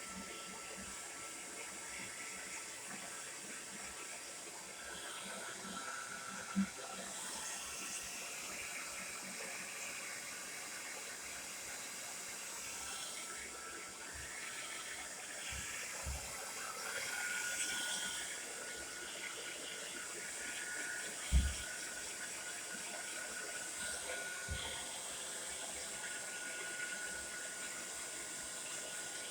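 Tresemmé Salon Smooth Professional hair dryer running steadily: a constant rush of air with a faint steady whine, and a few soft low thumps.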